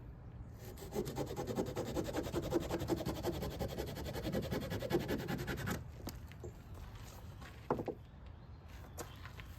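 A Swiss Army knife cutting the wet bark off a piece of tulip poplar, with fast back-and-forth strokes of the blade rasping on the wood for about five seconds. After that it stops, leaving a few light knocks.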